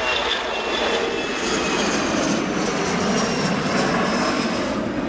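Embraer ERJ-135LR jet's twin rear-mounted Rolls-Royce AE 3007 turbofans at takeoff thrust as it lifts off and climbs away: a steady loud roar with a high whine that slowly falls in pitch.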